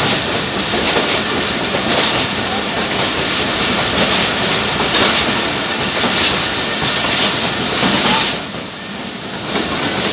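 Passenger train coach wheels running fast on the rails, a loud steady rumble with clickety-clack, echoing in a tunnel. About eight seconds in the noise drops sharply as the coach comes out into the open.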